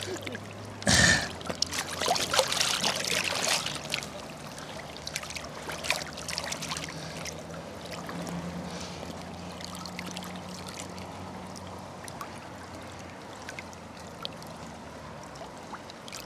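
Lake water sloshing and splashing around a wading angler's legs and hands as he holds a large carp in the shallows. There is a sharp splash about a second in and rougher splashing for the next few seconds, then gentler lapping.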